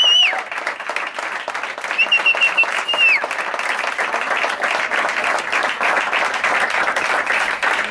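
Audience applauding. A warbling whistle of approval cuts through the clapping at the start and again about two seconds in, each one ending on a falling note.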